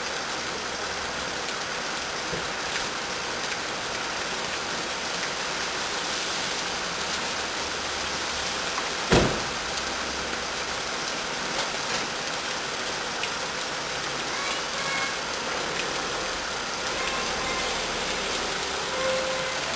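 Steady hiss of rain, with one sharp knock a little before halfway through.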